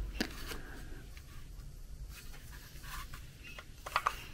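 Faint handling noise of a plastic 20V lithium-ion battery pack being turned over in the hands: a few light knocks and clicks, with two slightly louder ones close together near the end.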